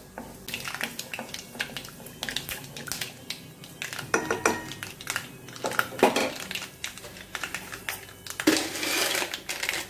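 Mustard seeds popping and crackling in hot oil with urad dal in a non-stick kadai, as a spoon stirs and scrapes against the pan. This is the tempering stage, with the oil hot enough for the mustard to splutter. There is a louder stretch of hiss near the end.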